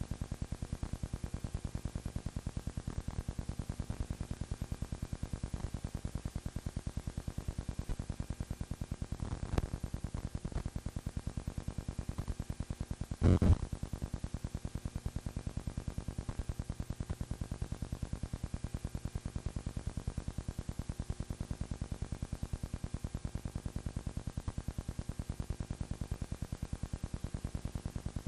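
Steady rapid clicking over a low hum, with a short pop about nine and a half seconds in and a louder crackle about thirteen seconds in.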